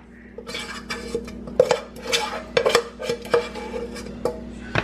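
A spoon scraping and knocking around the inside of a saucepan, scooping out marinara sauce: a run of short scrapes, about two a second.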